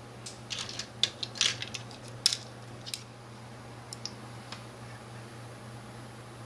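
Light clicks and taps of small tools and a tiny metal hinge pin being handled while the pin is set into the temple arm of a pair of glasses. The clicks come in a quick cluster over the first three seconds, then a few faint ticks, over a steady low hum.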